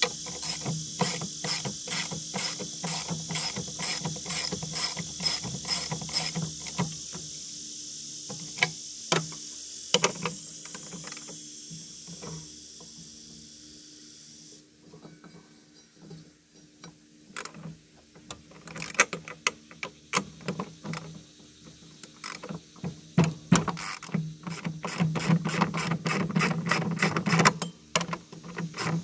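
Socket ratchet wrench clicking in steady runs of strokes as bolts on a mower deck are turned. The clicks thin out around the middle and come faster and denser near the end.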